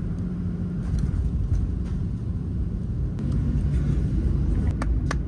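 Airliner cabin noise after landing: a steady low rumble of engines and rolling tyres, growing slightly louder about three seconds in, with a few sharp clicks near the end.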